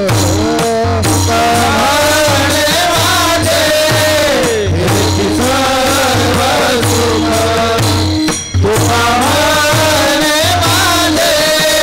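A man singing a Warkari chal, a Marathi devotional melody, in long wavering lines, over a steady low drone and evenly repeated jingling percussion strokes. The music briefly drops out about eight and a half seconds in.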